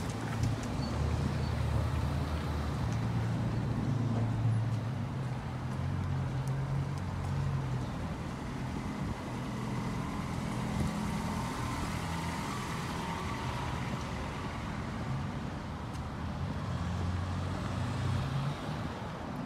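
Road traffic: a steady low rumble of passing motor vehicles, with engine hums that rise and fall slowly.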